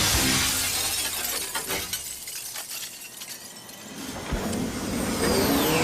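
Cartoon glass-shattering sound effect: a burst of breaking glass at the start that thins out and fades over about two seconds, then a low rumble building near the end.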